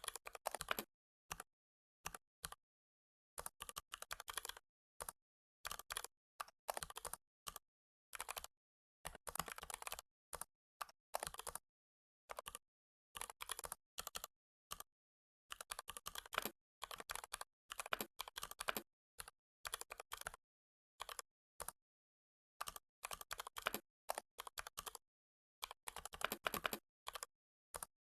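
Computer keyboard typing in quick bursts of keystrokes, with short pauses between runs.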